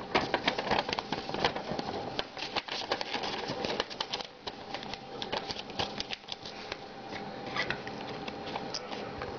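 Paper and cardboard being handled: a folded paper instruction sheet and a small cardboard product box crinkling, rustling and tapping in the hands, in irregular clicks and crackles.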